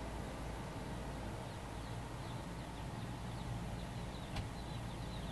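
Steady hum of an electric pedestal fan, with faint peeping of jumbo Cornish cross broiler chicks starting about a second and a half in and growing more frequent and louder toward the end. There is a single click about four seconds in.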